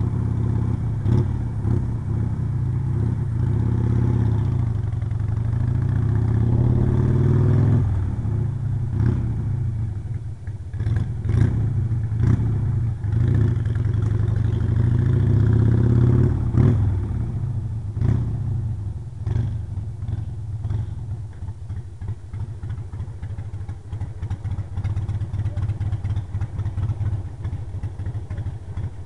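Harley-Davidson Sportster 883's air-cooled V-twin engine pulling away, its pitch rising twice and dropping at each change before it slows. It then settles to an even, pulsing idle.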